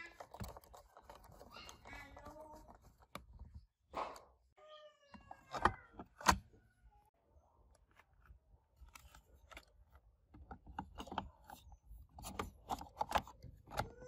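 Clicks and knocks of hard plastic Roomba chassis parts being handled, unscrewed and fitted together, with two sharp knocks about six seconds in and a run of small clicks near the end. A cat meows briefly about two seconds in and again about five seconds in.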